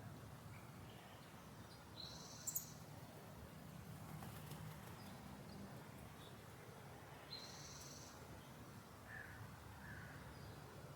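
Garden birds calling faintly over a steady low background hum: a short high call about two seconds in, a similar one about seven seconds in, and two softer, lower chirps near the end.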